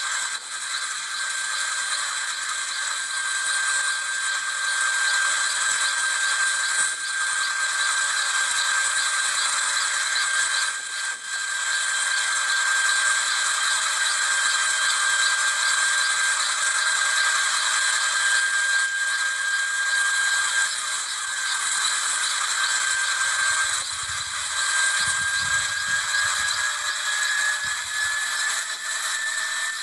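Small intermeshing twin-rotor helicopter running on the ground with its rotors turning. It makes a steady high whine with a rattling clatter, and the whine rises slightly in pitch over the last few seconds.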